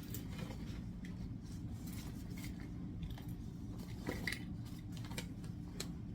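Scattered light clicks and clinks, like utensils and trays being handled, over a steady low machine hum in a bakery workspace.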